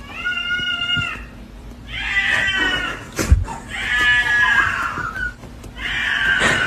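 A cat meowing loudly in four long, drawn-out yowls, each about a second long, with short gaps between them. A single sharp click cuts in about halfway through.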